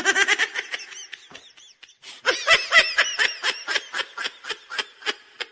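High-pitched laughter sound effect: rapid ha-ha-ha pulses, about six a second, in two bouts, the second starting a little after two seconds in, cut off abruptly at the end.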